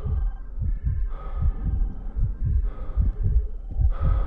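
A fast, low thumping beat, the thumps coming in rough pairs two or three times a second, under faint held tones.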